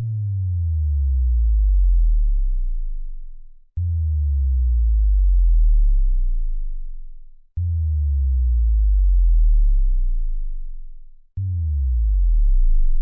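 Synthesized bass drops played one after another: four deep sub-bass tones, each starting abruptly, sliding down in pitch, swelling for about two seconds and then fading away. The last one starts near the end.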